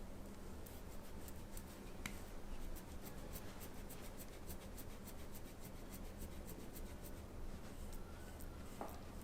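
Faint scratchy rubbing with many small scattered clicks, and one slightly sharper click about two seconds in.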